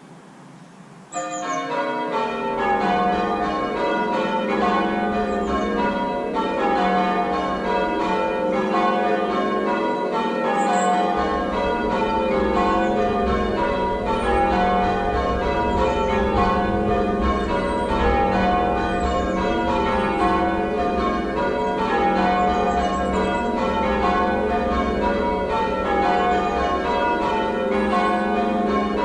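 A ring of six church bells, tenor 10-2-12 cwt in F, in change ringing. The bells start about a second in and are then struck one after another in steady, repeating descending rows.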